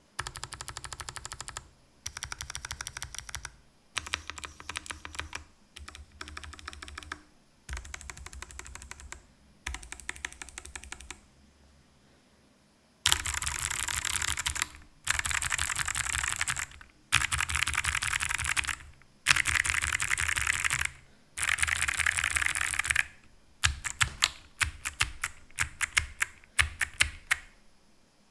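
Ajazz AC100 mechanical keyboard with clicky Kailh Box White switches, stock and unmodded, typed on in short bursts of fast keystrokes with pauses between. The bursts get much louder about halfway through. Near the end they break into separate, spaced key strikes.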